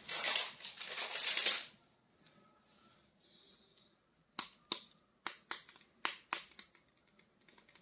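Plastic packaging crinkling and crackling for about a second and a half, then, after a short pause, a run of sharp plastic clicks at roughly two a second as a toy action figure is handled.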